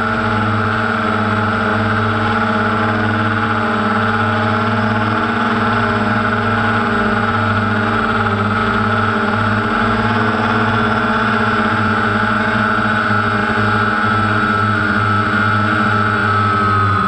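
DJI Phantom quadcopter's motors and propellers humming at a steady pitch, with a slight dip near the end.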